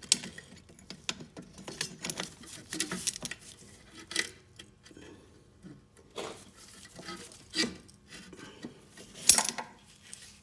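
Metal clinking and knocking as a clamp is worked against a rear brake caliper to press the fully extended piston back in; a scatter of sharp clicks, the loudest about nine seconds in.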